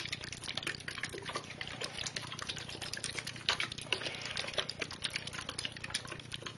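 Distilled water being poured into a bottle of powdered cyanotype chemical, a continuous run of small irregular splashes and glugs.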